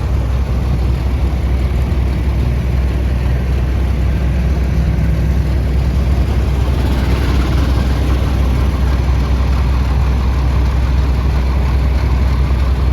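A tractor engine idling steadily, a low, even rumble.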